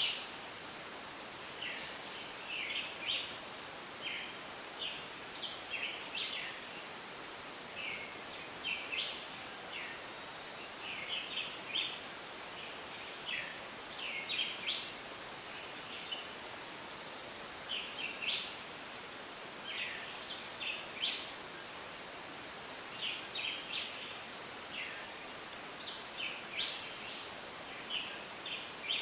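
Rainforest ambience: a dense, continuous chorus of many short, high chirping calls overlapping one another over a steady hiss.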